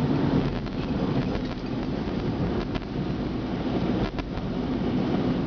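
Car cabin noise while driving: a steady low rumble of engine and tyres on the road, with a couple of faint clicks.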